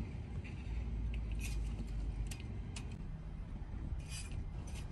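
A steady low rumble on the microphone, with several short, sharp clicks and clinks. The loudest cluster of clicks comes about four seconds in.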